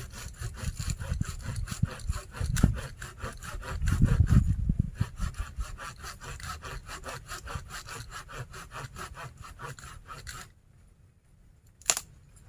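Hand saw cutting through wood in quick, even strokes, about four or five a second, with heavier low thuds a few seconds in; the sawing stops shortly before the end, followed by a single sharp click.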